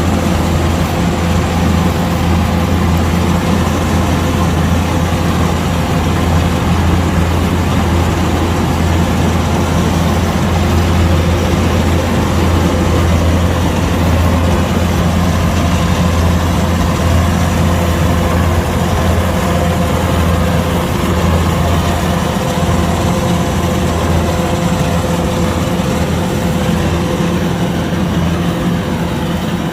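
Kubota DC-105X combine harvester's diesel engine running steadily at working speed, with a deep, even hum and machinery noise over it.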